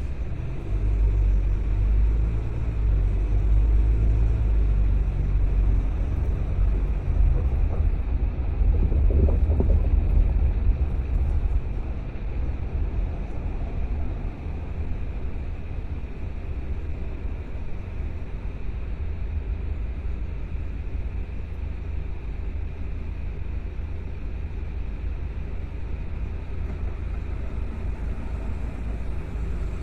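Low rumble of a car driving, engine and road noise from the moving car, louder for about the first twelve seconds and then steadier and a little quieter.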